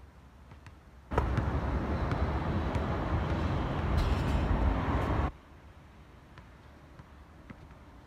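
Faint basketball dribbles and sneaker steps on an outdoor court, drowned about a second in by a loud rushing noise, heaviest in the low end, that lasts about four seconds and cuts in and out abruptly.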